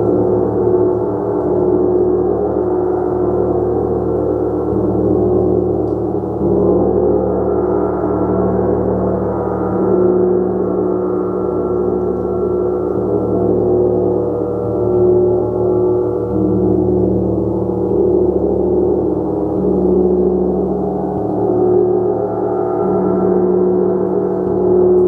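A gong played continuously, a sustained wash of many overlapping ringing tones that swells and eases every few seconds.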